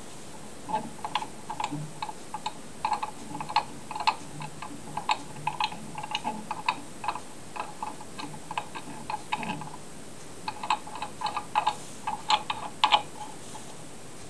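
Quick, irregular small metallic clicks from an aluminium planer-knife sharpening jig as its angle is adjusted by hand, about three to five a second, with a short pause about ten seconds in and stopping shortly before the end.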